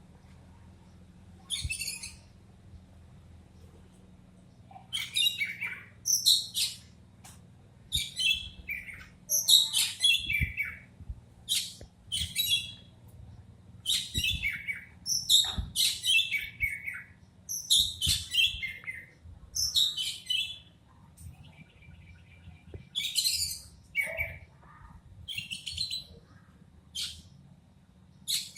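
An Oriental magpie-robin (kacer) gives short calls that sweep downward in pitch, one every second or two, over a faint low hum. These are the sounds the title calls the bird's cough.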